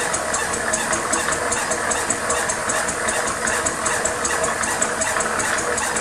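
Quarter-scale replica 16 hp single-cylinder Fowler ploughing engine running on compressed air, turning its winding drum to haul in wire rope. It makes a steady, rapid, even beat with mechanical rattle.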